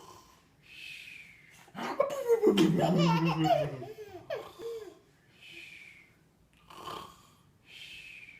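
A baby laughing in bursts at a man's snoring, the loudest run of giggles about two seconds in, with short, faint snore breaths recurring every two to three seconds between the laughs.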